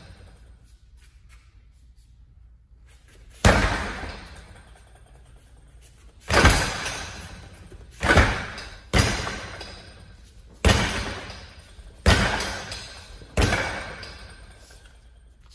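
Kicks and strikes landing on a freestanding wing chun training dummy: seven sharp impacts a second or two apart, each trailing off over about a second.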